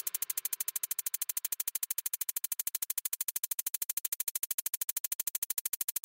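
Electronic music: a rapid, even synthesizer pulse, about a dozen pulses a second.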